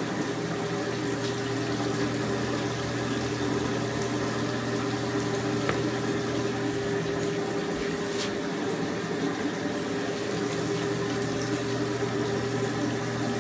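Copper coating pan running steadily: its drive motor hums while wet rice chaff tumbles with a rushing hiss in the rotating drum, being coated with black powder for bursting charge. A couple of faint scrapes of a scoop against the pan.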